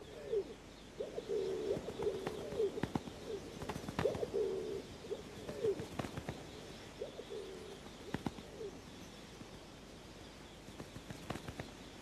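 Rock pigeons cooing: a run of short, repeated low coos that stops about three-quarters of the way through, with a few faint clicks scattered among them.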